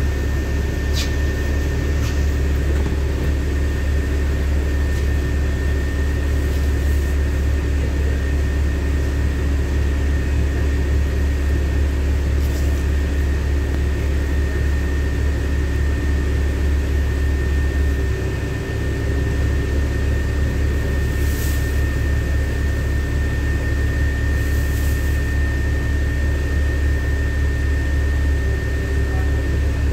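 LiAZ-5292.65 city bus idling at a stop: a steady low engine drone heard from inside the passenger cabin, with a thin high whine running over it. The drone dips briefly about two-thirds of the way through.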